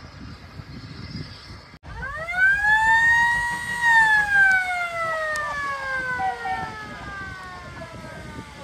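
Steam locomotive whistle blowing one long blast: it rises quickly to its note, holds for about two seconds, then slowly sags in pitch as it fades.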